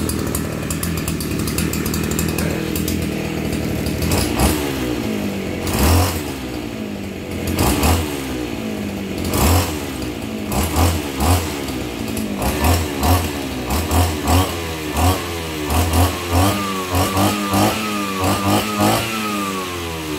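Shindaiwa S35 brush cutter's 35cc two-stroke engine idling, then revved again and again with quick throttle blips, each rev rising and falling in pitch. The blips come faster toward the end, with a screeching 'déo déo déo' whine as the spinning blade winds up, likened to a howling gear.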